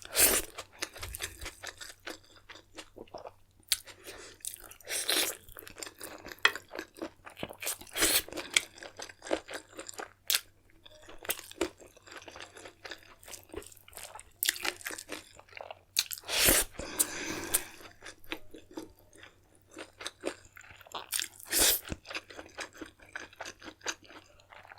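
Close-miked eating sounds: a person chewing and crunching mouthfuls of a spicy mutton curry and rice meal, with irregular sharp crunches, the loudest about two-thirds of the way through.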